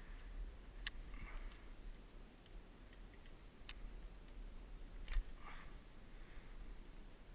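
Three sharp clicks of climbing hardware on the rigging, with brief rustling of rope and glove after the first and last, over a low steady rumble.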